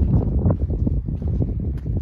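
Wind buffeting the microphone in a steady low rumble, with footsteps on a stony trail ticking through it.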